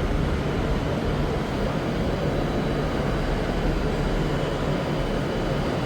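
Train running through the station platforms: a steady low rumble with no break.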